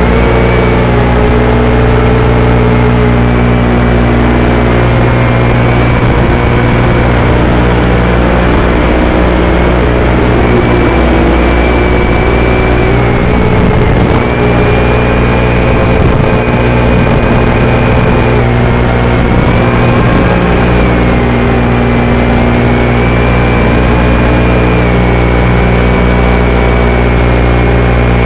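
Loud, constant buzzing hum and hiss in the audio channel of an FPV analog video link, with faint whine tones drifting slowly up and down over it. The uploader traces the noise to the video transmitter sending mono audio to a FatShark receiver module that expects stereo.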